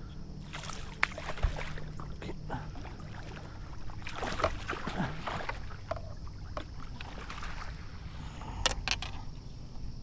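Water splashing and knocking against the boat in a few short bursts as a hooked bass is played out and landed beside the boat, over a steady low hum.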